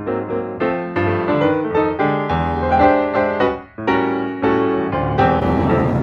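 Solo piano music, a melody of separate struck notes that ring and fade. About five seconds in, a steady rushing noise comes in under it.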